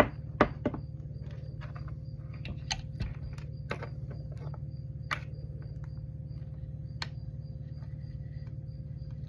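Scattered light clicks and taps as soldering tools and parts are handled, over a steady low hum.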